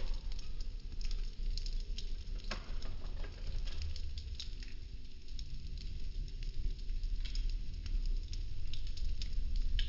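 Popsicle-stick model house burning: irregular crackles and pops of the burning wooden sticks over a low steady rumble.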